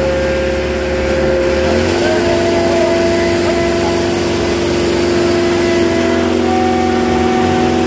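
Diesel engines of a Sonalika DI 750 III and a New Holland 3630 tractor running steadily during a tractor tug-of-war, their pitch stepping up about two seconds in and shifting again near six seconds. Crowd voices can be heard over them.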